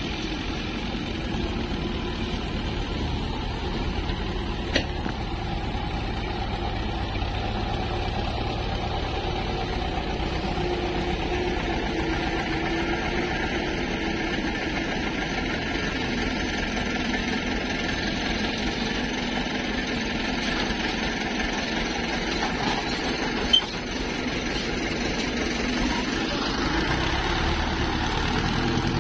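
Farm tractor diesel engines running steadily, with two short sharp clicks, one about five seconds in and one near the end.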